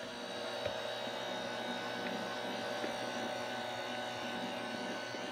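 Electric hand mixer running steadily with its beaters in thick cheesecake batter, a constant motor whine.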